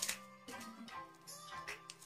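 Background music with held tones and light, evenly spaced notes.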